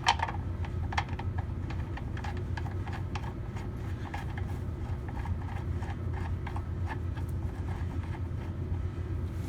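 Light, irregular metallic clicks and ticks from refitting the oil pan drain plug on a 5.7 L HEMI, over a steady low hum.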